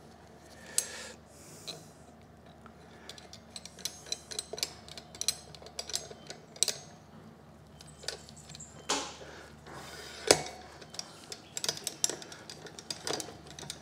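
Scattered metal clicks and clinks as a slide hammer is fitted and screwed onto a blind bearing puller, with a sharper metallic knock about ten seconds in.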